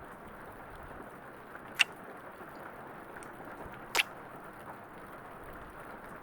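Two short, wet kissing smacks, one just under two seconds in and one about four seconds in, over a soft steady hiss of rain.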